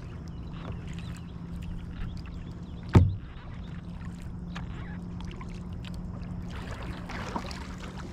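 Kayak paddling on calm water: soft paddle strokes and water lapping at the hull, over a steady low hum. About three seconds in, a single sharp knock against the boat.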